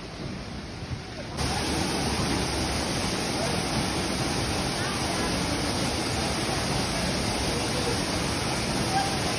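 Waterfall: a steady rush of falling water, suddenly louder about a second and a half in.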